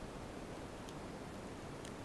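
Underwater ambience recorded by a camera in a waterproof housing on a speargun: a steady low hiss and rumble, with a few faint sharp clicks.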